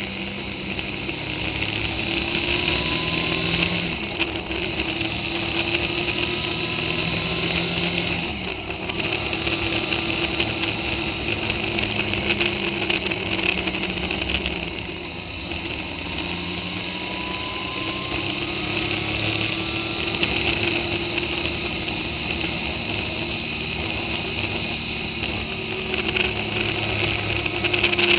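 Motorcycle engine running while riding along a road, its pitch rising and falling with the throttle, under a steady rush of wind over the microphone.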